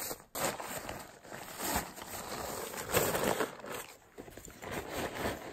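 Fabric rustling and crinkling as a camp chair in its stuff sack is lifted and pushed into the top of a backpack. The handling is loudest about three seconds in.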